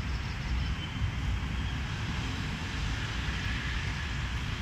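Steady low rumble of a small tram running away over wet rails, with street traffic behind it and a faint high whine partway through.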